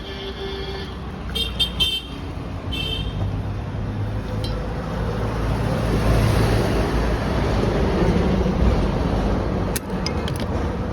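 A vehicle horn gives several short toots in the first three seconds. Then a motor vehicle passes by, its engine and road noise swelling through the middle and dying away near the end.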